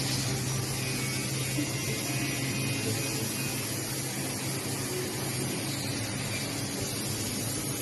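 Goodtech multi-spindle CNC drilling, milling and tenoning machine running: a steady low hum with a continuous hiss over it.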